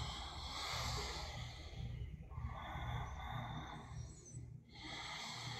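A person's slow, audible breathing through the nose during a standing forward bend: long breaths of about two seconds each, one after another with short pauses between them.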